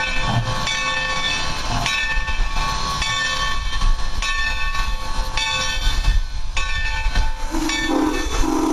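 Steam locomotive's bell ringing, a stroke about once a second, over the low rumble of the slowly moving engine. Near the end its steam whistle starts to blow, one steady low note.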